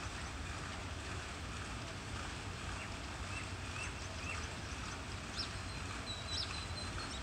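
Outdoor ambience: a steady low rumble with short bird chirps, a run of four in the middle and a few higher, sharper ones near the end.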